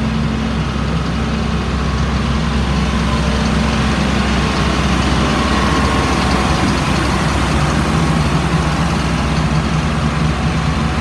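A 2004 Blue Bird All American school bus's diesel engine idling steadily.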